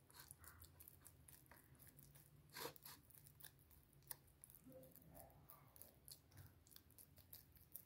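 Faint clicks, scrapes and squelches of a metal spoon stirring thick flour batter in a bowl, a few sharper taps of the spoon against the bowl about two and a half and four seconds in.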